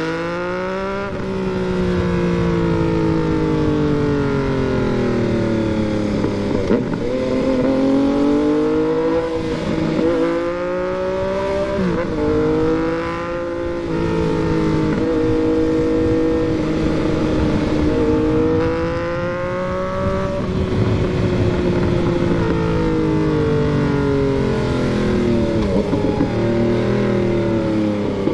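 Yamaha MT-09 three-cylinder motorcycle engine riding, its pitch rising under acceleration and dropping back several times, with a stretch of steady running in the middle.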